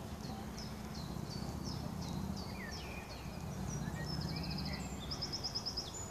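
Birds singing, with repeated short high chirps and quick trills, over a steady low background hum.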